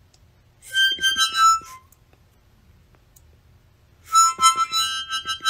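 A miniature harmonica held to a pet rat's mouth, several reeds sounding together as the rat breathes and nibbles at it. It plays in two bursts: about a second long shortly after the start, then again from about four seconds in.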